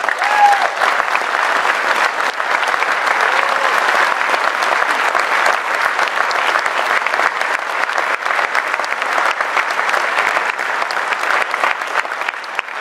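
Large audience applauding steadily, dense clapping that eases off near the end.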